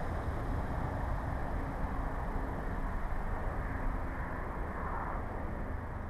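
Steady outdoor background noise: an even low rumble with a faint hum running through it.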